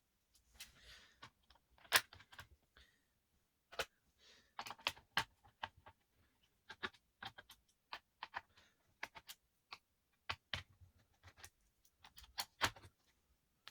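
Irregular sharp clicks and taps on the plastic casing of an Asus K550L laptop being worked on, a few a second with short pauses.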